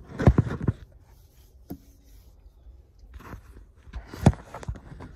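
Handling noise from a hand-held phone: a few scattered knocks and short rubs as it is moved about, the loudest a sharp knock about four seconds in.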